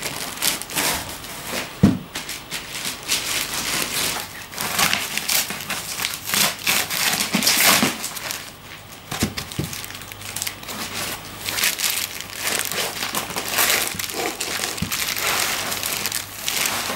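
Clear plastic bag wrapped around a loudspeaker cabinet crinkling and rustling while foam packing end caps are pulled off and handled. A few dull thumps come through, the loudest about two seconds in.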